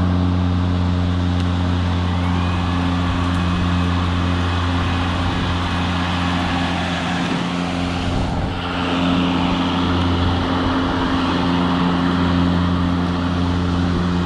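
EGO 21-inch Select Cut 56-volt cordless lawn mower's electric motor and blade spinning at speed: a steady, even hum with a rush of air, very quiet for a mower, changing tone slightly about eight seconds in.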